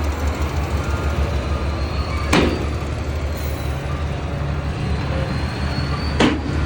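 Heavy diesel earthmoving machinery running with a steady low drone. A sharp clank comes about two and a half seconds in, and another near the end.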